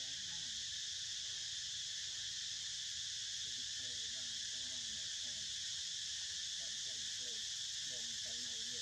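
A steady, unbroken outdoor chorus of insects, a high, even drone.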